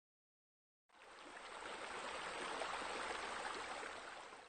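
Water running and falling over a pool's waterfall, a steady rush that fades in about a second in, grows louder, then eases off near the end.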